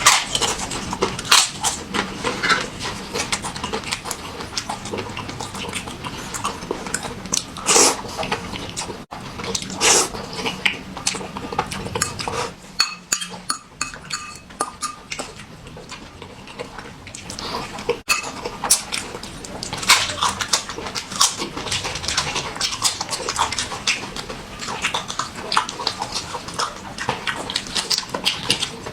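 Close-miked eating sounds: wet chewing, smacking and slurping of noodle soup with ham, sped up to double speed, in a steady run of quick clicks and smacks.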